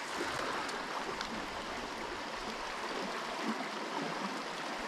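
River water running over and between rocks in a shallow riffle: a steady, even rush.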